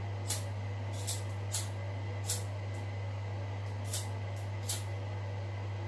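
A steady low hum throughout, with about eight brief, crisp rustles and clicks from fingers handling a small tealight candle in its thin metal cup.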